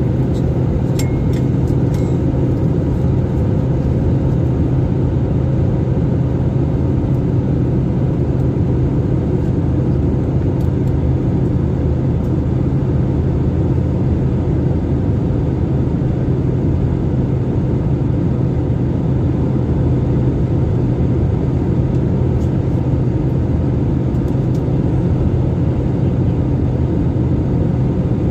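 Steady rumble of a passenger airliner's cabin in flight: engine and airflow noise with a low hum, even throughout. A few faint ticks sound about one to two seconds in.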